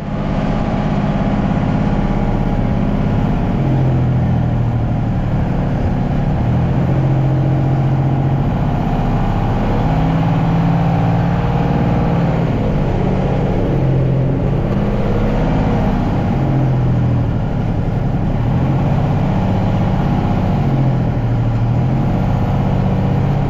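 Boat engine running steadily at speed, its low pitch wavering up and down a little.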